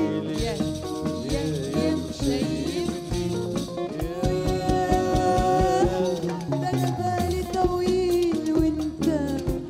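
A woman singing an Arabic song with a live band, keyboard prominent in the accompaniment. She holds one long note about four seconds in.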